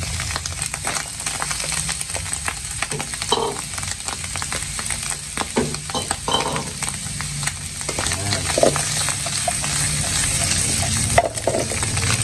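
Sliced button mushrooms, onion and garlic frying in oil in a nonstick pan: a steady sizzle with many small crackles and pops, and a spatula stirring and scraping through them near the end.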